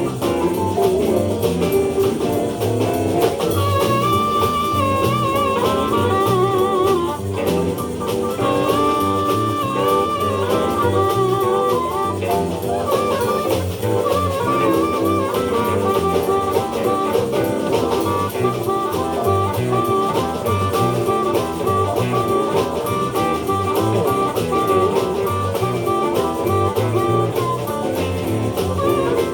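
Live blues band playing an instrumental passage: electric guitar, bass and drum kit, with a lead melody line of held, warbling high notes coming in about four seconds in.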